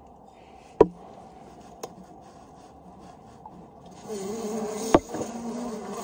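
Honeybees buzzing, growing louder about four seconds in as the feeder jars are swapped and bees rise from the hive. Sharp knocks of glass feeder jars being handled and set down come about a second in and, loudest, about five seconds in.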